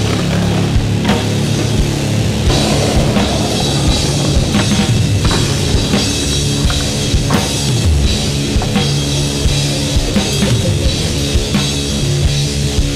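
Rock soundtrack music with a driving drum kit and bass.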